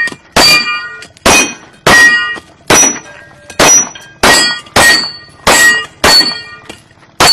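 Pistol shots fired in a steady string, about ten in all, less than a second apart, each followed by the brief ring of a struck steel plate target.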